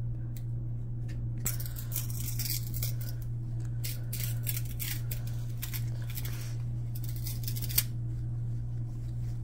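Football trading cards sliding and rubbing against each other as they are flipped through by hand: a run of quick, papery scraping swishes with a sharp snap near the end. A steady low hum runs underneath.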